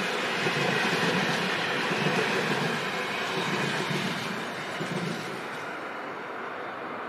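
Passenger train coaches rolling past at close range, their wheels running on the rails with a low pulsing about once a second. The sound drops away after about five seconds as the last coach passes and the train moves off.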